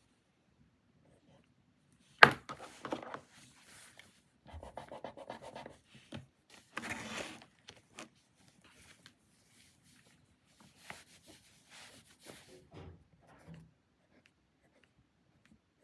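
Desk work sounds while doing homework. A sharp click or tap comes about two seconds in and is the loudest sound. Irregular rustling and scraping of paper and stationery follow, with a longer rustle around seven seconds and scattered faint taps and rubs later on.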